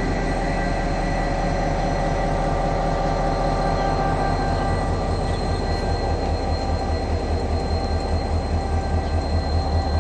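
GM-EMD GT26CW-2 diesel-electric locomotive idling, its two-stroke EMD 645 V16 diesel running steadily with a low, even throb. The throb becomes more pronounced in the second half.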